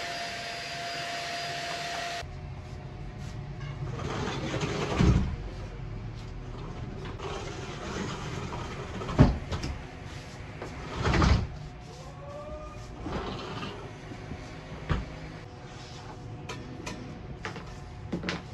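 A desk being shoved about on a laminate wood floor: irregular scrapes and knocks, the sharpest a knock about nine seconds in and a longer scrape about two seconds after it, with a short squeak between them.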